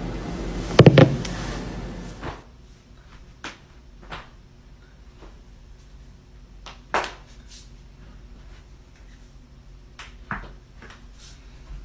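Joints cracking: a quick cluster of loud pops about a second in, over a steady hiss that stops soon after, then single sharp pops every second or few seconds, the loudest about seven seconds in.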